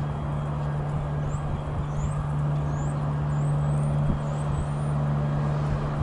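A steady low mechanical hum, like a motor running at constant speed, over a rough haze of noise. Faint, short, high rising chirps come through about seven times.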